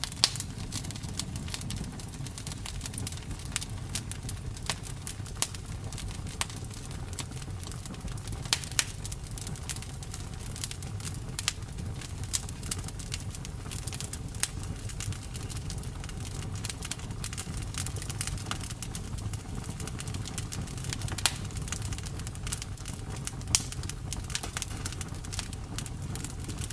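Campfire crackling: a steady low rumble of burning wood with frequent sharp pops and snaps, a few of them louder.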